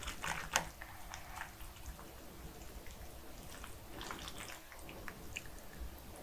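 Wooden chopsticks stirring and lifting cream-sauced pasta noodles in a metal pan: faint scattered clicks and soft handling sounds, with a louder click just after the start.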